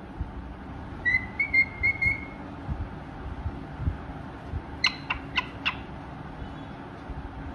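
Pied cockatiel calling: a quick run of about five short whistled notes about a second in, then four sharp chirps near the middle.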